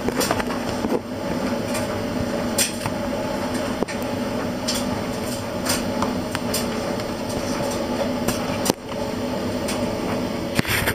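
A steady mechanical hum, with scattered sharp clicks and knocks at irregular intervals.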